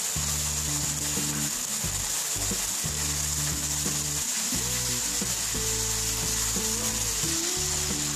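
Chopped onion, capsicum and tomato with sauces sizzling in a nonstick frying pan, stirred and scraped with a wooden spatula, over soft background music.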